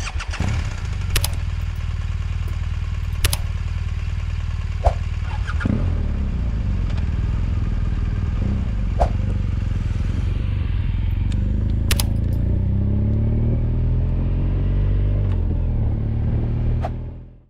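Motorcycle engine running under way, heard from on the bike, with a few sharp clicks; in the second half its pitch climbs as it accelerates. It fades out at the end.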